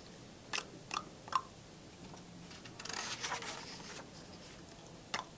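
Picture-book pages being handled and turned: a few faint taps, then a brief paper rustle about three seconds in.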